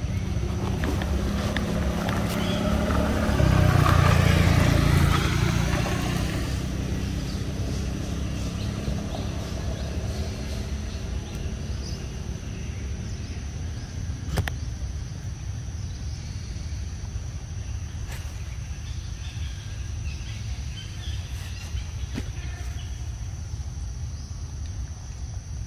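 A low, steady outdoor rumble that swells louder for a few seconds near the start, under a thin, steady high insect drone, with a faint click or two.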